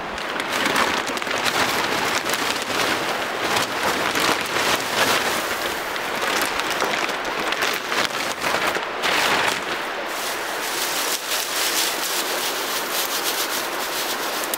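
Close, dense rustling and crackling from a large black plastic sack being handled and dry twigs being worked by hand, in many small uneven crackles.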